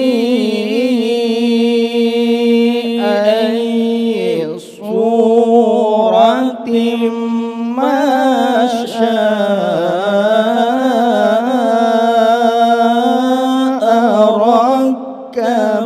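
A man's voice reciting the Quran in the slow, melodic mujawwad style through a microphone. He holds long, ornamented notes with wavering pitch and breaks briefly for breath about four and a half seconds in.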